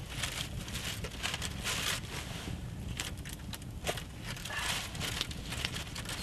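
Scattered sharp crackles and crunches: a campfire crackling, with footsteps and shuffling on stony ground.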